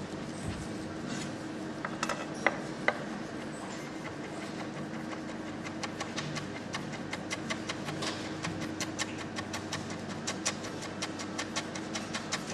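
A kitchen knife chopping parsley on a cutting board: two separate knocks, then from about a third of the way in, rapid, even taps of the blade on the board. A steady hum runs underneath.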